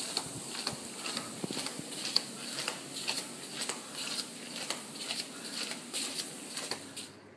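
Footsteps on a hard tiled corridor floor, a brisk walk of about two steps a second over a steady hiss, cutting off suddenly near the end.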